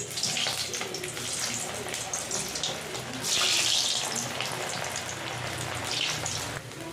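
Water running, likely from a kitchen tap, with an uneven splashing rush that stops abruptly near the end.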